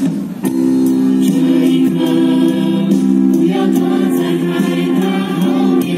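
A mixed youth choir singing long held chords in several parts, with a short break just after the start before the next chord comes in.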